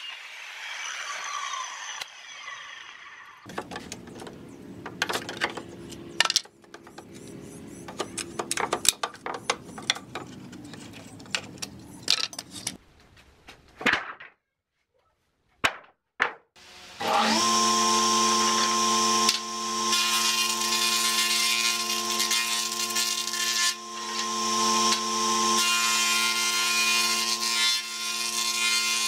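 A handheld circular saw finishes a cut through pallet wood and winds down. Wooden boards then knock and clatter as they are handled for about ten seconds. After a short quiet, a combination jointer-planer starts up with a rising whine and runs steadily, its noise swelling and easing as a board is pushed across the cutter.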